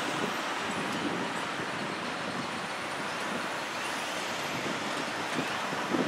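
Steady urban background: distant traffic noise mixed with wind on the microphone.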